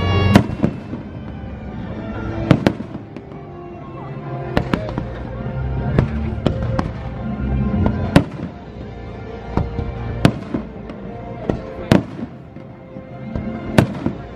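Aerial firework shells bursting in sharp bangs every second or two, over the fireworks show's soundtrack music.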